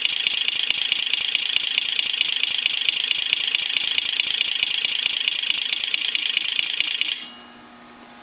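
Six large 12V relays clicking rapidly one after another in an Opel Omega A inline-six firing order, together making a steady engine-like chatter. The clicking stops abruptly about seven seconds in, leaving a faint steady hum.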